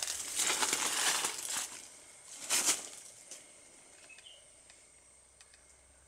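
Large leaves rustling and brushing close by, in a long burst at the start and a short one about two and a half seconds in, then quieter with a few faint ticks.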